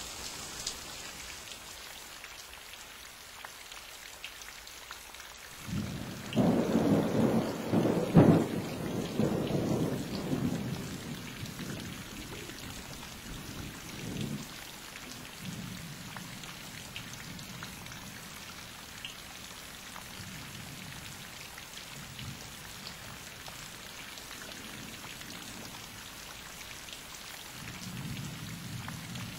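Thunder over steady rain. A rumble starts about six seconds in, peaks with a sharp clap a couple of seconds later, then rolls away over several seconds. A softer low rumble comes near the end.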